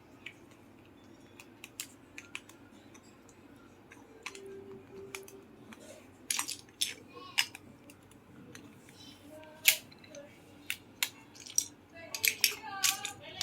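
LEGO bricks clicking and clattering as pieces are picked out and snapped together, in irregular sharp clicks.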